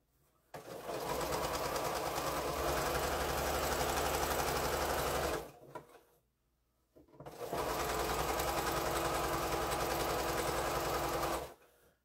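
Sewing machine stitching a seam through quilt fabric pieces, running steadily at speed in two runs of about five seconds each, stopping for about a second and a half between them.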